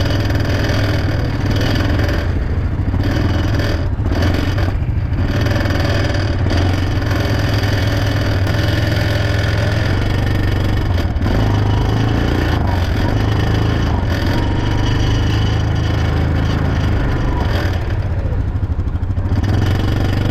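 ATV engine running steadily under way, heard loud and close.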